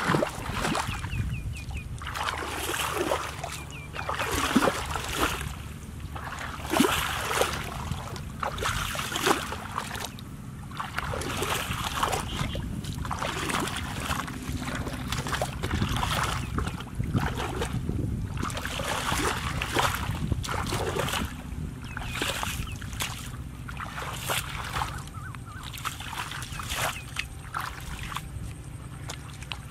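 Bare feet wading through shallow muddy water, a splash and slosh with each step, about one step a second.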